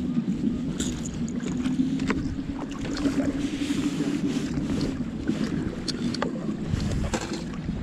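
Bass boat's motor humming steadily, with wind rumbling on the microphone and a few light knocks.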